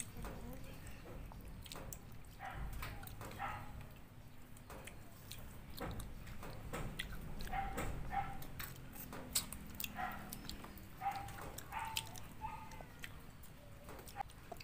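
A cat mewing in a few short calls, several seconds apart, over the small clicks and smacks of people eating with their hands.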